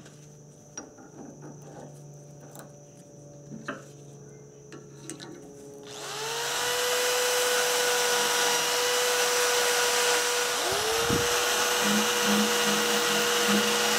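A few light clicks and knocks, then about six seconds in a handheld power tool spins up and runs with a steady whine. It stops briefly near the eleven-second mark and spins back up.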